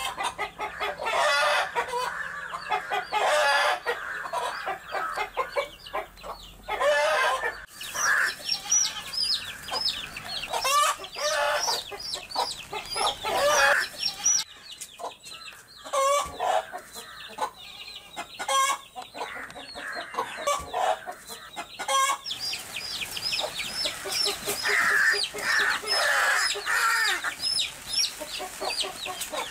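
Chickens: hens clucking and calling loudly in bouts, with chicks peeping in many quick, high, falling notes through most of it.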